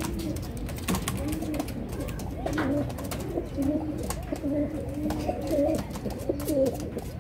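Domestic pigeons cooing over and over, several calls overlapping, with scattered light clicks.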